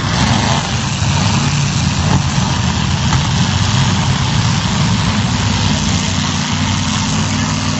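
Demolition derby car engines running steadily at low revs, loud and even, over a constant wash of noise.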